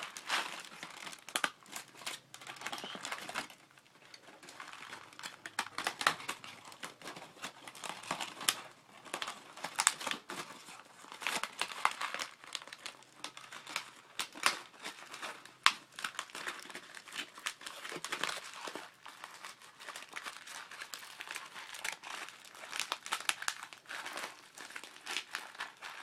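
Aluminium tin foil being crinkled and crumpled by hand as it is wrapped around the BB-filled bottom of a plastic water bottle, an uneven run of crackles and sharp crinkles with short pauses.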